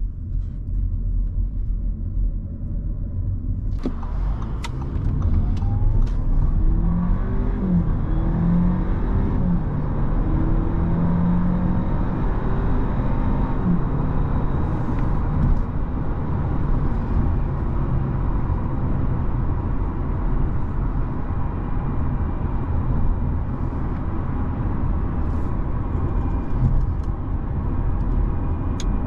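Cabin sound of an Audi A4's 2.0 TFSI turbocharged four-cylinder petrol engine. At first it drives slowly. About four seconds in it accelerates hard, the engine note climbing and dropping back at each quick upshift of the 7-speed S tronic gearbox. From midway on it settles into steady motorway cruising with road and tyre noise.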